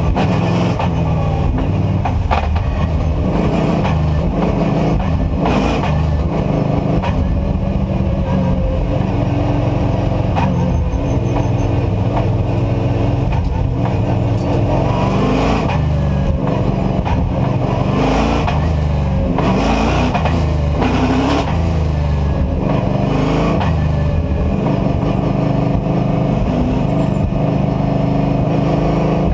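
NASCAR Whelen Euro Series stock car's V8 engine heard from inside the cockpit, running hard at race pace. Its pitch repeatedly climbs and drops with gear changes and corners.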